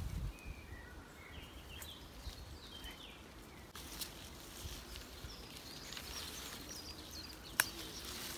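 Birds chirping in short scattered calls, with a few sharp clicks and rustling as elderflower stems and leaves are handled.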